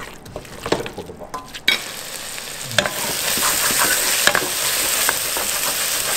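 Chicken in green mint masala sizzling as it sautés in a stainless steel pressure cooker, with a wooden spatula stirring and knocking against the pot. The sizzle rises sharply a couple of seconds in and then stays loud and steady.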